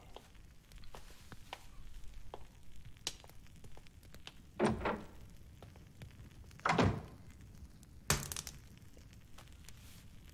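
Fire crackling faintly in a fireplace, with three dull thuds in the second half, the first two about two seconds apart and the third a second later.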